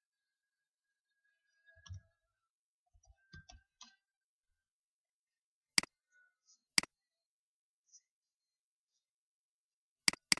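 Computer mouse button clicks: a few faint taps, then two sharp single clicks about a second apart and a quick double-click near the end.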